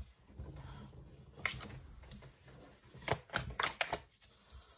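Crystal Visions tarot deck shuffled by hand and cards laid on the table: a soft rustle and handling rumble, then a quick series of sharp card snaps and taps, clustered about three seconds in.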